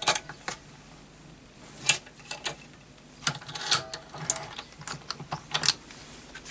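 Small bench vise being wound to press a ball bearing into an aluminium spindle housing: a series of irregular light metallic clicks and knocks from the vise's sliding-bar handle and screw.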